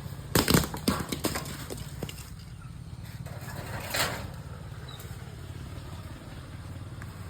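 A burst of loud thuds and cracks about half a second in, with one more knock about four seconds in: coconuts cut from the palm with a telescopic pole saw striking the ground. A steady low hum runs underneath.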